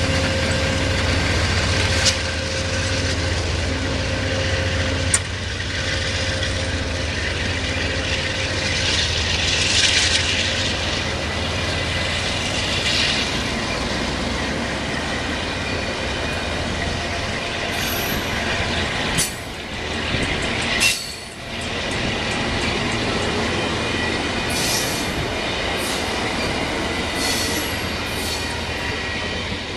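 Amtrak passenger train rolling past with a steady rumble: the diesel locomotive's engine hum in the first several seconds, then the cars' wheels running over the rails with occasional sharp clicks. Brief high-pitched wheel squeals come several times in the last third as the cars take the curve.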